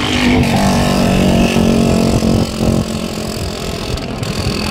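Motor scooter running at road speed, a steady engine hum over rough wind rumble on the phone's microphone held out while riding.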